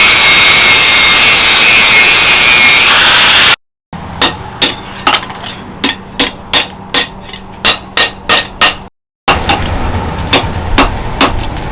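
A loud, steady power-tool noise cuts off suddenly a few seconds in. Then a hammer strikes steel in a regular rhythm of about two to three ringing blows a second, the hammering of a knife blade on an anvil.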